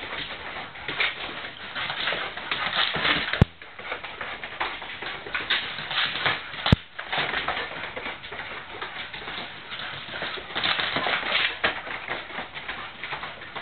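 Mastiff puppies running and skidding around a hard kitchen floor: a busy, uneven patter of paws and claws. Two sharp knocks stand out, about three and a half seconds in and again about three seconds later.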